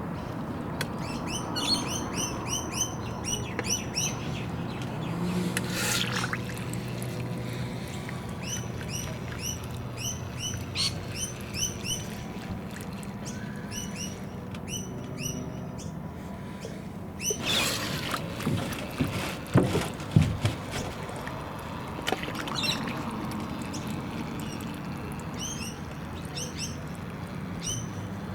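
Small birds chirping over and over, with a steady low hum beneath and a few sharp knocks, the loudest about 20 seconds in.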